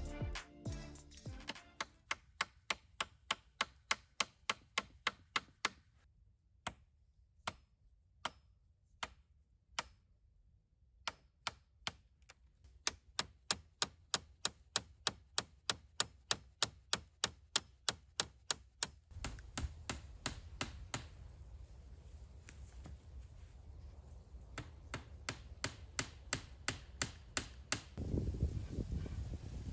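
Hatchet used as a hammer, tapping nails into bent willow rods: quick, even, sharp strikes about three a second, in runs with short pauses. Near the end, wind rumbles on the microphone.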